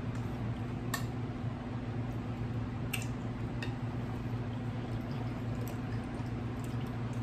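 A man chewing a mouthful of potato salad close to the microphone, with a few sharp mouth clicks about one, three and three and a half seconds in, over a steady low hum.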